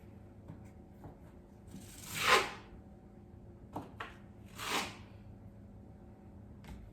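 A taping knife drawn through wet joint compound on the wall, two short scraping strokes with a couple of small knocks between them.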